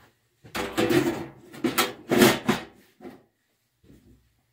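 Scraping and rubbing on the sheet steel of an old toolbox in three or four short strokes, as a badly aligned hole is worked open to fit.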